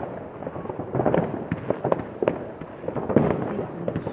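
Fireworks going off in a dense, overlapping barrage of bangs and crackling cracks with no pause between them.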